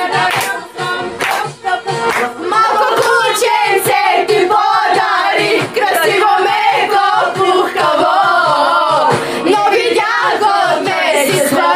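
A group of women singing a pop-folk chorus together, loudly and a little raggedly, on a phone recording.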